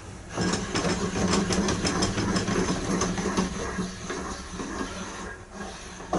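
A small electric motor running with a rapid clattering rattle for about three and a half seconds, then dying away. A short knock comes near the end.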